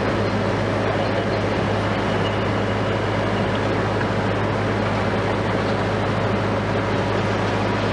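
Heavy diesel engine of a Liebherr LTM 1750-9.1 mobile crane running steadily, a constant low drone.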